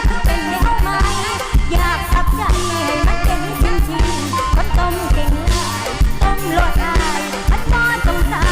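Mor lam band music with a steady drum-kit beat under a melody line that bends in pitch.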